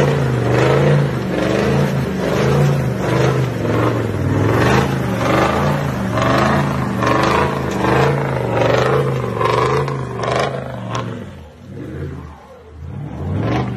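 Toyota Land Cruiser 79-series ute engine revving up and down in pulses as it drives through muddy ruts. The sound drops away near the end as the truck pulls off down the track.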